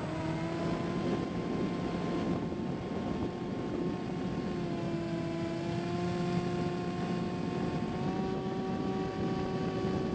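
Bix3 RC plane's electric motor and pusher propeller running at a steady throttle, picked up by the onboard camera: a steady whine of several tones over wind rush. The pitch steps up slightly about eight seconds in.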